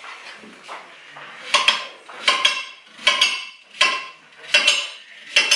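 Knife chopping raw pumpkin into cubes on a hard cutting board. After a quieter start come six sharp clacks, each with a brief ring, about one every three-quarters of a second.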